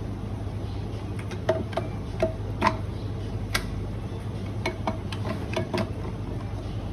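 Light, irregular clicks and taps of small coffee-grinder parts being handled and set down, over a steady low hum.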